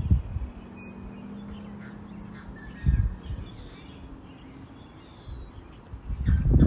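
Birds calling faintly in short chirps and calls, with wind gusting on the microphone as low rumbles at the start, about three seconds in and near the end. A faint steady hum runs through the first half.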